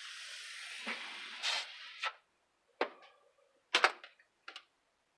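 Rustling for about two seconds, then several sharp plastic clicks and taps from the parts of a disassembled Olympus 8mm camcorder being handled, the loudest a little past the middle.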